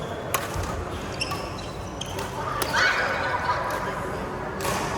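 Badminton rally in a hall: sharp racket strikes on the shuttlecock, about five of them roughly a second apart. A short loud squeak comes about halfway through.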